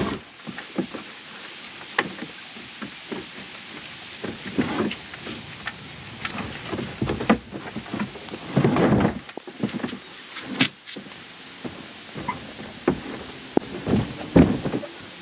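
Irregular clicks, knocks and rattles from a kayak being moved on land, picked up by a camera mounted on its deck, with louder low rumbling bumps about nine seconds in and again near the end.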